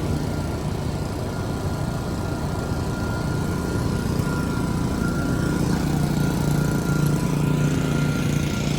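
An engine running steadily at an even idle, a constant hum with a faint steady whine above it.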